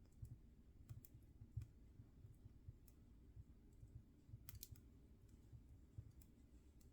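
Wood fire crackling faintly in a fireplace: scattered sharp pops and snaps over a low, soft rumble of flame, with a quick cluster of pops about four and a half seconds in.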